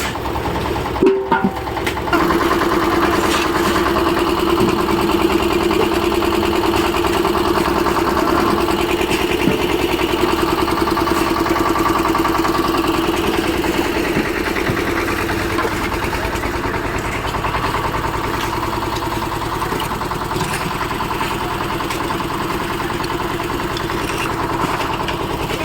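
An engine on a road-construction machine running steadily, with a brief knock about a second in.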